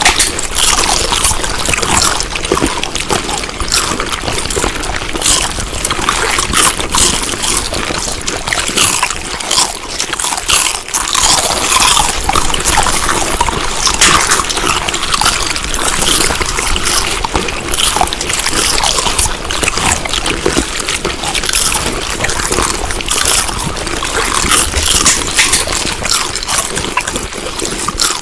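Close-up chewing of food: wet, smacking and crackling mouth sounds with dense, irregular clicks throughout.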